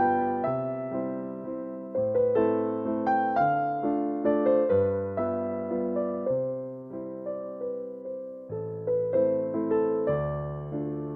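Background piano music: a gentle melody of struck notes that ring and fade, with a steady beat.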